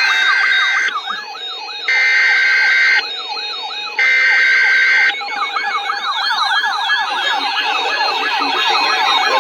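Electronic emergency alert siren: a fast wailing sweep that rises and falls about three times a second, with a loud steady alarm tone switching on and off about once a second over the first half.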